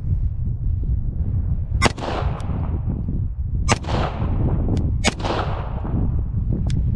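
Three pistol shots fired at a steady pace, each crack trailing off in a long echo, with fainter single cracks in between. A steady low wind rumble on the microphone runs underneath.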